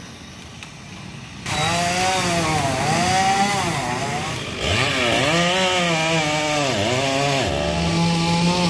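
Chainsaw cutting up a fallen tree. It comes in loudly about one and a half seconds in, then runs with its pitch repeatedly dropping and climbing again as the cut loads the engine and it revs back up.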